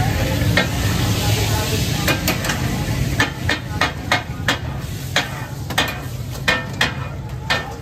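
Metal ladle and spatula scraping and striking a flat iron tawa as fish is stirred and chopped on it, with frying sizzle and a steady low rumble underneath. From about two seconds in come sharp, irregular clanks, around a dozen of them.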